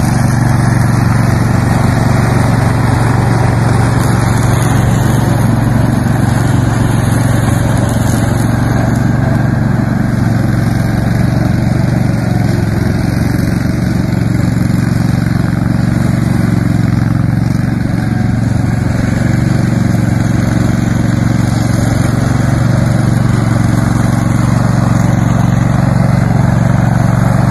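Riding lawn mower engine running steadily and loud as the mower is driven across the lawn.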